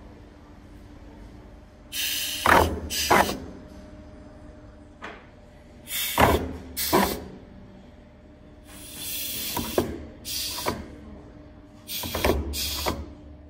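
WEDA WA-0619-130 pneumatic guillotine textile cutter cycling four times, about every three and a half seconds. Each cycle is a pair of sharp air hisses with clunks as the air cylinder drives the blade down through the fabric and back up. A faint steady hum runs underneath.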